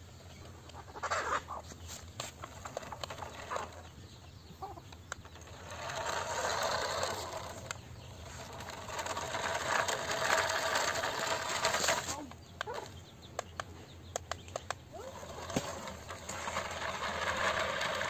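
Toy remote-control car's small electric motor and gears running as it drives over dirt, in several stretches of a few seconds each, with scattered small ticks in between.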